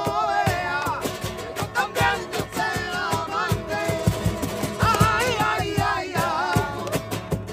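Music: a singer's voice sliding between notes over guitar and a steady beat.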